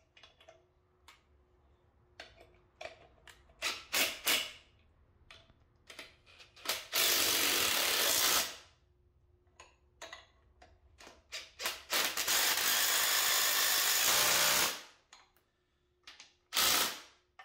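DeWalt cordless driver running bolts into the engine's front accessory drive: a few short trigger blips, then two longer runs of about two seconds each, and a short burst near the end.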